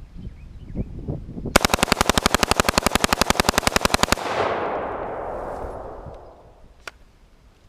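Semi-automatic rifle bump-fired through a bump-fire stock: a rapid, even string of about thirty shots in roughly two and a half seconds, starting a second and a half in and stopping abruptly, followed by a rolling echo that dies away over about two seconds.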